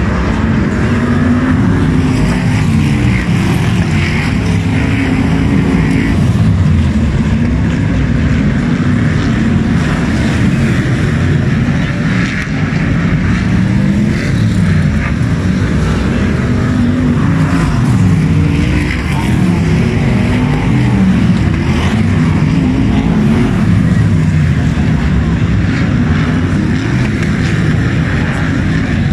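A pack of F1 stock cars racing on a dirt oval, their V8 engines revving up and easing off as they pass, so that overlapping engine notes keep rising and falling in pitch.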